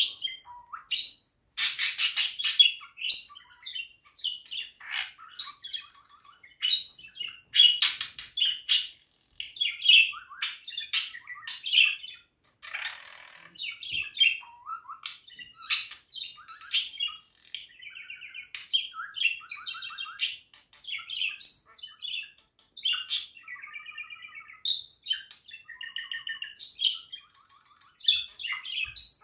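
Budgerigar warbling and chirping: a rapid, near-continuous run of short chirps, clicks and chattering notes, with stretches of sliding, wavering warble.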